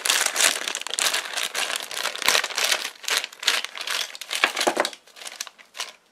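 Thin plastic toy bag crinkling and crackling as it is ripped open and emptied, the crackles thinning out after about five seconds.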